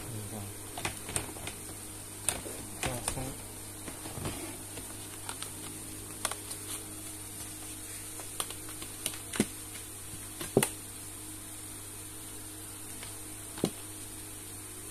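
White perforated plastic storage basket being lifted out of its rack and turned over by hand: irregular light plastic clicks and knocks, the loudest about ten and a half seconds in, over a steady low hum.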